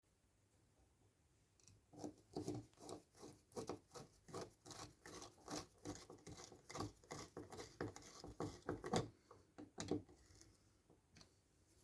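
Rapid light metallic clicking and tapping, several strikes a second, starting about two seconds in and stopping near the end, with a faint ring: small metal parts being handled or fitted.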